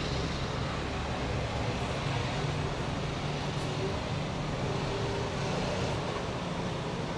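Steady low outdoor background rumble with a faint hiss above it.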